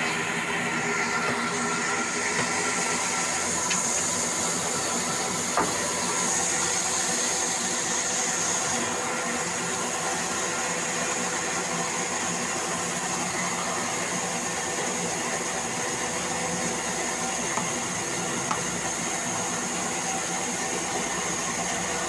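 Vertical band saw running steadily while a wooden plank is fed along its blade and ripped, with a steady high whine over the machine noise.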